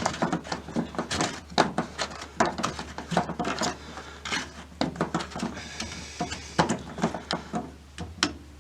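Irregular plastic clicks, knocks and scrapes of hands working the drain pump filter of a Samsung front-load washer back into its housing.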